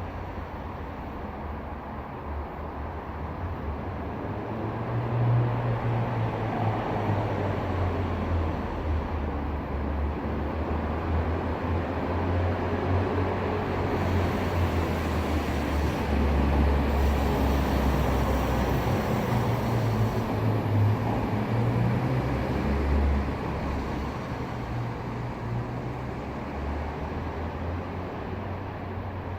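2018 Honda Accord on the move: a steady low road-and-engine rumble that grows louder through the middle and eases near the end, with a rattle from somewhere in the car.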